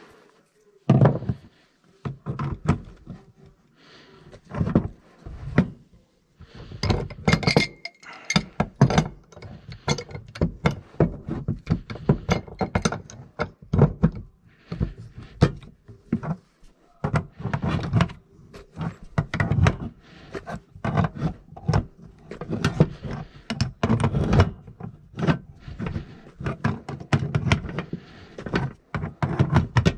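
Irregular metallic knocks, clicks and clanks of a wrench working a new gas valve onto threaded gas pipe.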